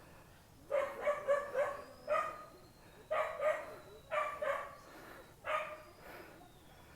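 A dog barking repeatedly in short clusters of barks, beginning about a second in.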